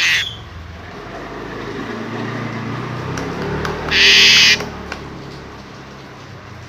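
Pied starling (jalak suren) giving a harsh, noisy scream of about half a second, about four seconds in, with a shorter harsh burst right at the start.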